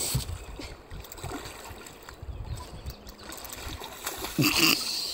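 A big blue catfish splashing and thrashing at the water's surface while hooked on a line, with the loudest splash about four and a half seconds in.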